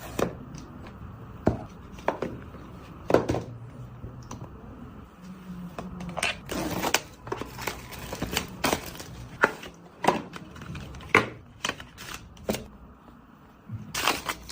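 Smartphone retail box and its packaging being handled and opened: irregular taps and clicks with short bursts of crinkling and tearing of paper or plastic wrap.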